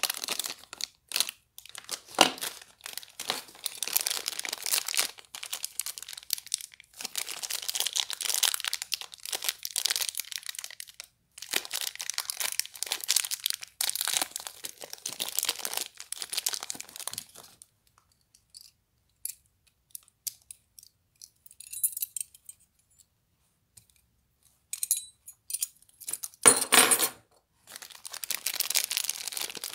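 Clear plastic packaging bags crinkling and rustling as they are handled and pulled open, in long stretches broken by a quiet gap in the middle. A short, louder and fuller burst of handling noise comes near the end.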